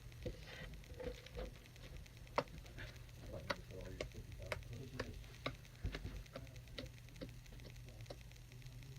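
Sticky clear-glue slime being kneaded and stretched by hand, giving faint, irregular little clicks and pops as it pulls off the fingers and skin.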